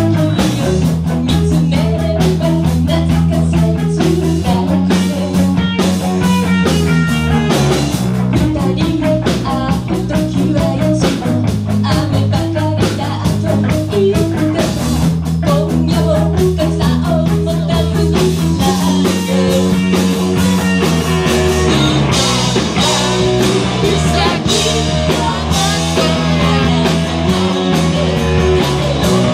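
Live rock band playing loud: electric guitars, bass and a drum kit, with a singer singing over them.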